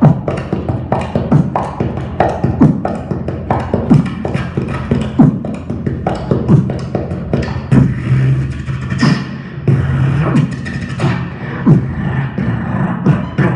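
Solo beatboxer performing a drill 'n' bass routine into a handheld microphone: fast, dense mouth-made drum strokes over a low bass tone that runs underneath.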